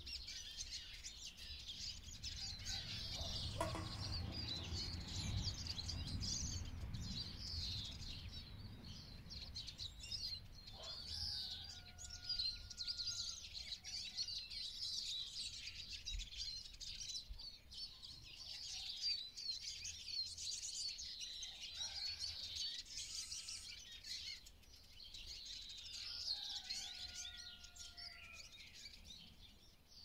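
Many small songbirds chirping and twittering continuously, with a low rumble for several seconds a few seconds in.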